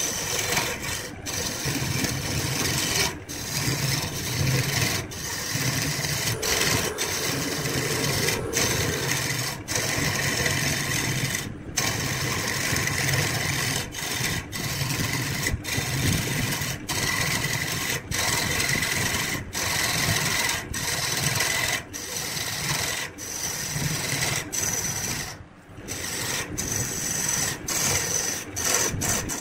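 Wood lathe running with a tool rasping against the spinning wood: a steady low hum under a rubbing, scraping noise, broken by many short gaps.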